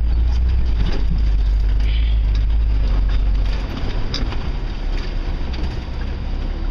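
4x4 truck driving over rough off-road ground, its engine a steady low rumble with occasional knocks and rattles from the body. About three and a half seconds in, the engine sound eases off.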